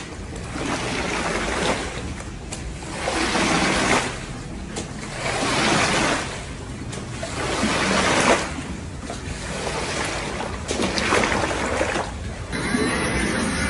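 Squeegee pushed through soapy foam and water on a wet shag carpet, making a wet swishing scrape with each stroke, repeated every second or two.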